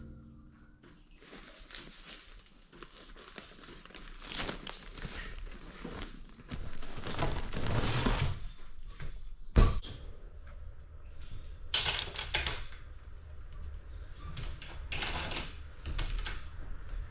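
Irregular knocks, clatters and shuffling noises, with a sharp single knock about ten seconds in and a louder cluster of clatter a couple of seconds later.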